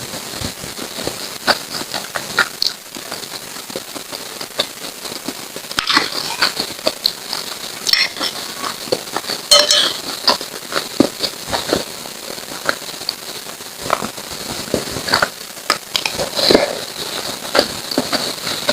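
Close-miked mukbang eating sounds: lontong sayur (rice cake in vegetable curry) being chewed, with many quick wet mouth clicks and crackles. There is a brighter, ringing clink about nine and a half seconds in.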